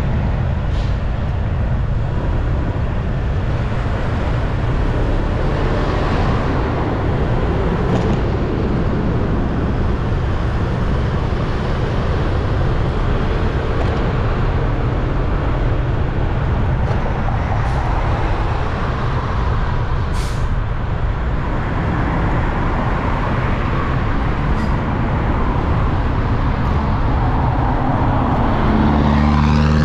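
Motorbike riding along a road: steady engine, tyre and wind noise. It grows a little louder near the end, with a deeper pitched engine sound.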